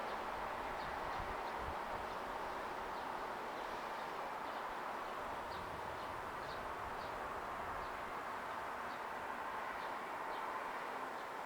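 Steady outdoor background noise with small birds chirping briefly here and there. No bells are ringing.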